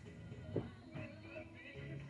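Music with a steady melody, and a sharp knock about half a second in followed by a lighter one near the middle.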